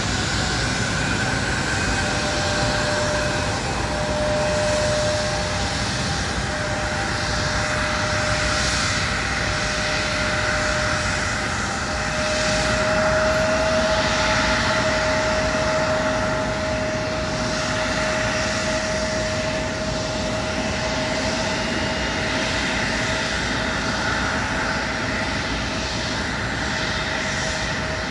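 Airliner's engines running with a steady whine over a wide rush of noise, a little louder about halfway through.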